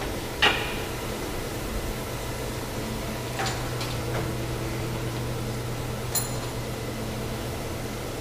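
Steady low hum of idling machinery, with a few sharp clicks and knocks from parts being handled: the loudest about half a second in, others around three and a half and four seconds, and a ringing metallic clink about six seconds in.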